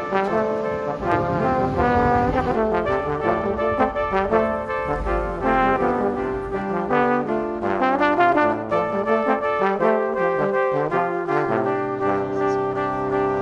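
Background music from a brass quartet of trumpets and trombones, moving through a tune of changing notes and settling into a held chord near the end.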